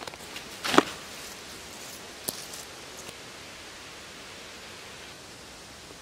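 Backpack being handled and set down on leaf litter: rustling with a loud thump about a second in, a sharp click a little later, then a steady even hiss.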